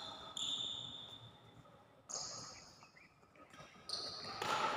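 Badminton play in a large hall: a few sharp, high squeaks and hits from shoes and rackets, each fading with an echo.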